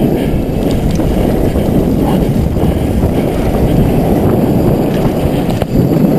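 Downhill mountain bike ridden fast, heard through a helmet or bar-mounted action camera: a loud, steady rumble of wind on the microphone mixed with tyre noise and the bike rattling over rough ground. One sharp knock near the end.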